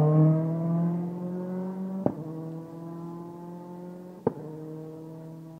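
Rally car engine accelerating hard as the car drives away, its pitch rising steadily and fading with distance. Two sharp cracks cut through, about two seconds in and again about four seconds in.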